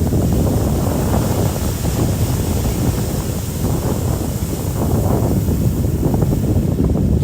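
Ocean surf breaking and rushing on a beach, heavy wind buffeting the microphone in a loud, steady low rumble.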